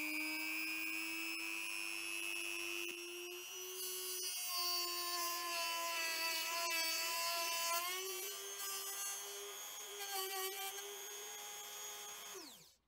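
Handheld rotary tool, used as a makeshift tool post grinder, running with a steady high whine as its small grinding wheel grinds the flutes of a dull end mill. From about four seconds in the note wavers and a rougher grinding sound joins it. Near the end the motor is switched off and winds down quickly.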